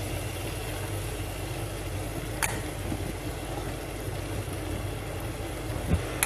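Steady low hum with a faint hiss. A steel spoon taps the clay cooking pot twice, about two and a half seconds in and again at the end, while lentil paste is spooned into the pot.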